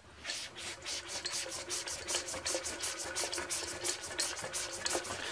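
Victor lathe apron gear train turning, its gear teeth clicking fast and evenly, about seven a second, over a faint steady hum, as it drives the auto-lubrication oil pump and pushes oil through the freshly primed lines.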